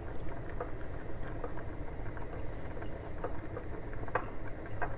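Fingers mixing olive oil and dried herbs in a ceramic bowl: scattered faint clicks and taps against the bowl, with a few sharper ticks near the end, over a steady low rumble.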